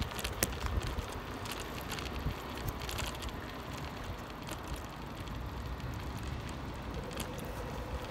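Bicycle rolling over cobblestones: a steady low rumble of the tyres on the stones, with a few sharp rattling clicks in the first few seconds.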